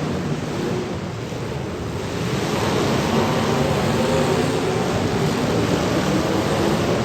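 Demolition derby car engines running and revving under a steady rushing noise, like wind on the microphone; no clear crash impacts.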